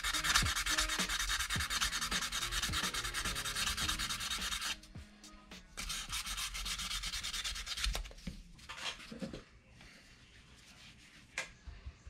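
Hand sanding: rapid back-and-forth sandpaper strokes that stop about five seconds in, start again for about two seconds, then give way to a few scattered light scrapes and taps.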